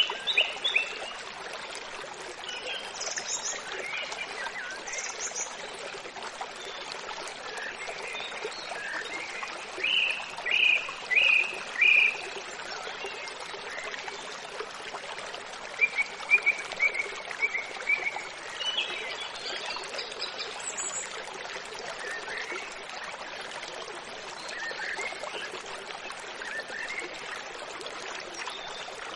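Steady rush of a stream with short chirping calls of small animals in quick runs of three or four, loudest about ten to twelve seconds in and again around sixteen seconds.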